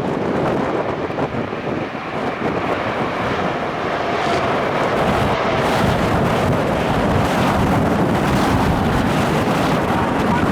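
Strong wind buffeting the microphone over the steady noise of an Airbus A350's jet engines. The sound grows a little louder and brighter about four seconds in.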